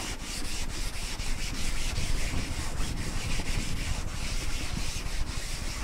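Hands rubbing and scraping over the fabric-covered headliner board, an irregular run of scratchy strokes.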